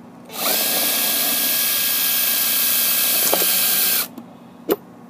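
Cordless drill running at a steady speed for about three and a half seconds, drilling through a plastic water bottle's cap, then stopping abruptly. A single sharp click follows.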